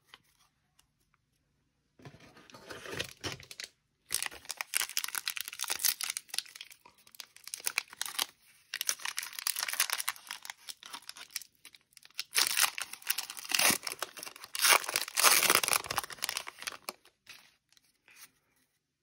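Trading card pack wrapper being torn open and crinkled by hand, with crackling in several bouts that start about two seconds in and stop a couple of seconds before the end.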